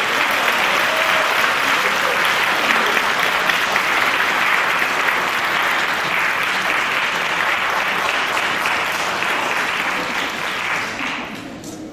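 Audience applauding steadily for an award presentation, dying away near the end.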